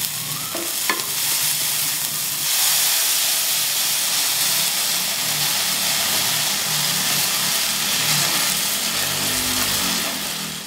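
Food frying in hot oil in a pan, a steady loud sizzle with a light tap about a second in. The sizzle grows louder about two and a half seconds in, as blended tomato puree steams in the hot pan and is stirred.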